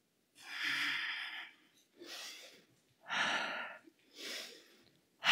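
A woman breathing hard through the mouth, out of breath after a cardio interval and recovering: four audible breaths, two longer, louder ones each followed by a shorter, quieter one.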